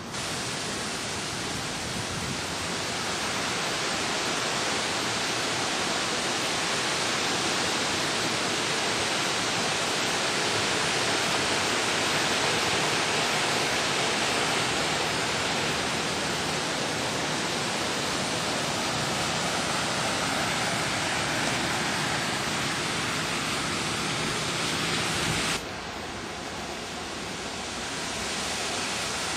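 Heavy storm rain pouring down with wind, a steady loud rushing hiss from the tropical storm. Near the end it cuts suddenly to a somewhat quieter rush.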